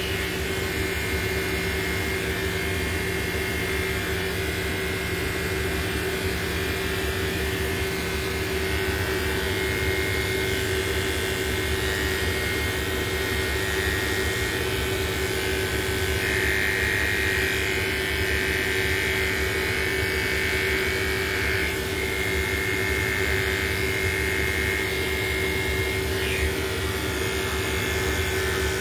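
Electric dog grooming clippers running steadily as they cut through a dog's coat, the buzz growing brighter for a few seconds midway, over a constant low mechanical drone.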